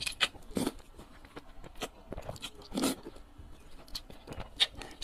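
Close-miked eating of sesame-sauce noodles: irregular wet slurping and chewing sounds, with a longer, louder slurp near three seconds in.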